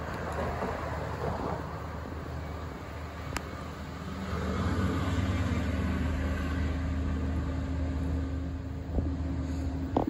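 Low, steady hum of a motor vehicle's engine running nearby, growing louder about halfway through and then holding.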